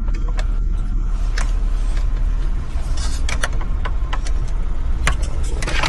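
Sharp clicks and taps of plastic dash trim and wiring-harness connectors being unplugged and handled, irregular, with a small cluster near the end, over a steady low rumble.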